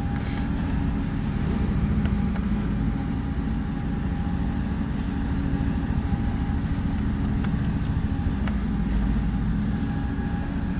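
Boat engine running steadily under way, a low even drone with a steady hiss over it, heard from inside the cabin.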